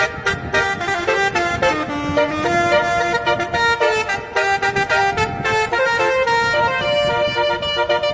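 Musical 'telolet' multi-tone horns playing a quick tune of stepped notes, with sharp clicks running through it.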